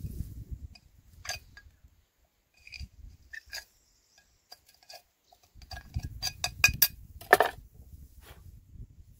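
Metal clinking and knocking as tools and metal parts are handled: scattered single clicks, then a quick run of clinks about six to seven seconds in and a longer, louder rattle just after, with a low rumble underneath at times.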